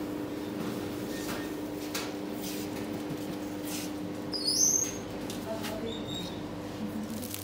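A steady low electrical hum, with a few light clicks and a short high squeak about four and a half seconds in.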